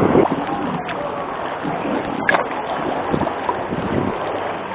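Sea water splashing and lapping around a kayak, with wind on the microphone and one sharp knock a little over two seconds in.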